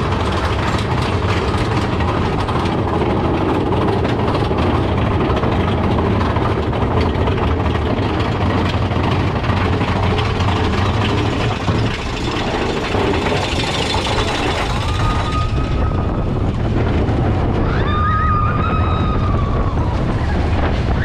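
Mine-train roller coaster running along its track, heard from on board: a steady loud rumble of the cars on the rails with rushing air. Two brief high tones sound near the end.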